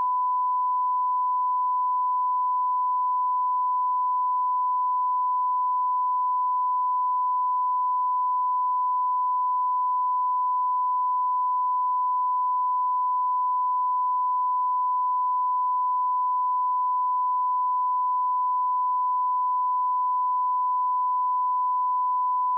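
Television colour-bars test tone: a steady 1 kHz sine-wave beep held unbroken at one pitch and one level. It is the line-up reference tone played alongside colour bars.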